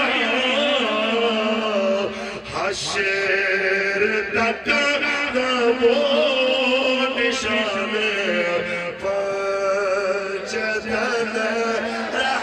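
A man's voice chanting a melodic recitation into a microphone, drawing out long, wavering held notes.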